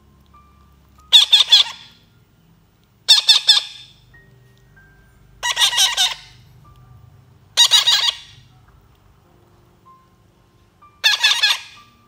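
Baby parrots' begging calls as they are hand-fed: five loud calls of about half a second each, every one a rapid stutter, spaced two to three seconds apart.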